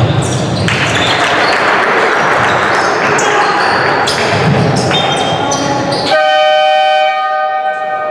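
Football match noise with sharp ball thuds over a noisy hall. About six seconds in, a steady horn sounds for about two seconds.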